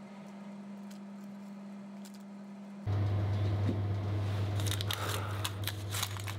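Parchment baking paper crinkling, with small clicks and taps, as paper-lined loaf tins are handled, over a steady low hum that starts suddenly about three seconds in.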